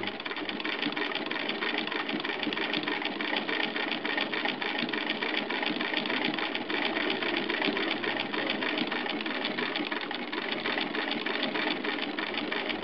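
1911 Minnesota D hand-crank sewing machine (a Davis-built, Sears-badged machine) being cranked and stitching, a steady rapid clatter of the mechanism with no pause.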